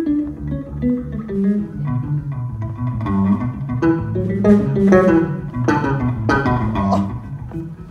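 Electric bass guitar played solo through an amplifier: a fast run of separately plucked notes that grows busier and louder in the middle, then eases off near the end.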